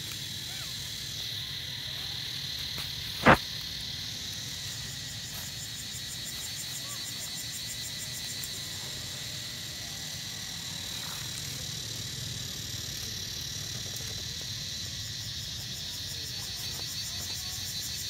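Steady chorus of insects buzzing high and unbroken, with one sharp click about three seconds in.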